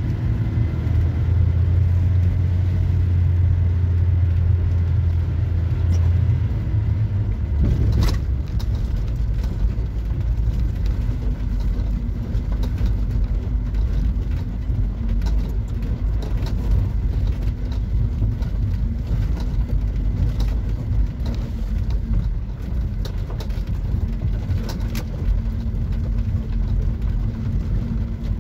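Small camper van driving down a rough dirt track: a steady low engine drone whose pitch drops about seven seconds in, with a sharp knock about eight seconds in and another near the end.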